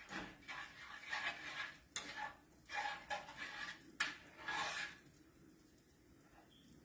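A utensil scraping and stirring eggs in a buttered skillet as they scramble, in a run of short strokes with a couple of sharp clicks against the pan; the stirring stops about five seconds in.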